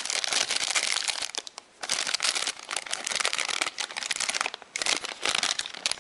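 Plastic packaging crinkling and rustling as it is handled, in crackly bursts with two short pauses, about two seconds in and near five seconds.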